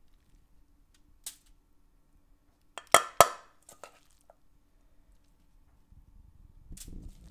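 Metal tongs clinking against a stainless steel mixing bowl while scooping out a stuffing: a few scattered sharp clinks, the loudest two in quick succession about three seconds in.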